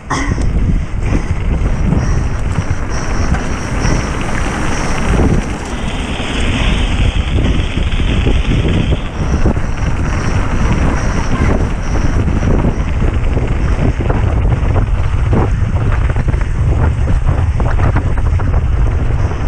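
Wind buffeting a helmet or bike-mounted camera's microphone at speed, over the constant rattle and knocks of a mountain bike running down rough trail.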